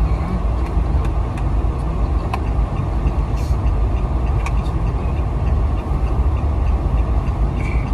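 Steady road and engine noise inside the cabin of a moving car, with a few faint clicks.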